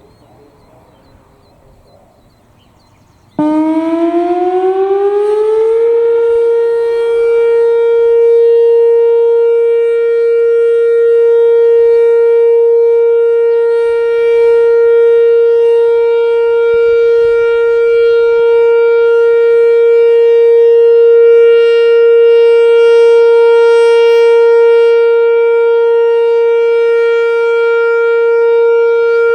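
Whelen WPS-4004 electronic outdoor warning siren sounding its short alert signal. About three seconds in it comes on suddenly, glides up in pitch for a couple of seconds, and then holds one steady, loud tone at 465 Hz.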